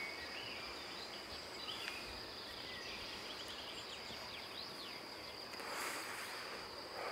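Outdoor rural ambience: a steady high-pitched insect tone with a few short scattered chirps, and a brief swell of noise about six seconds in.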